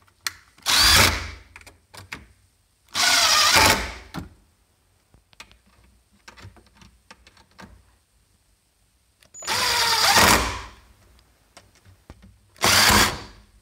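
Power drill driving in screws, in four short runs of about a second each, its motor pitch wavering under load, with small clicks and taps between.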